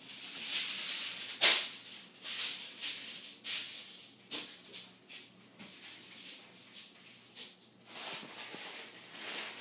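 Handling noise: irregular rustling and scuffing of paper and hands against the recording phone, with one sharp scrape about one and a half seconds in.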